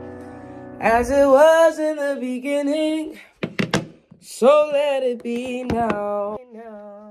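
A woman singing two short wordless phrases, with a couple of quick knocks between them. A guitar-led music track's last chord dies away at the start.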